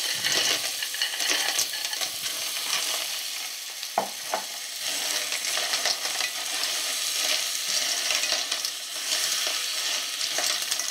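Clams in their shells sizzling in hot oil in a sauté pan as a silicone spatula stirs them, the shells clicking and scraping against the pan over a steady hiss. A sharper knock comes about four seconds in.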